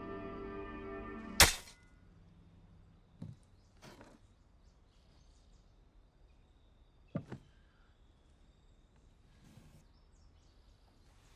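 Sustained music ends abruptly with one loud, sharp impact about a second and a half in. After it the track is quiet, with a few soft knocks.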